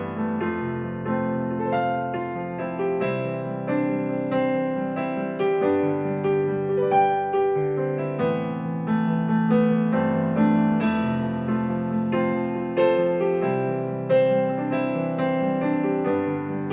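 Solo piano playing an instrumental passage of chords and melody notes without singing, a new note or chord struck about every half second to second.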